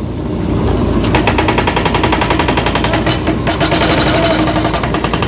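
JCB backhoe loader's hydraulic breaker hammering concrete in a fast, even series of blows, starting about a second in, over the diesel engine's running drone.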